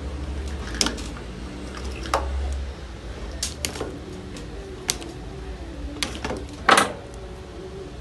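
Sharp clicks and small clacks of pliers and plastic wire connectors being handled while wiring a microwave oven control board, about six in all, irregularly spaced, the loudest near the end. A low hum runs under the first three seconds, then stops.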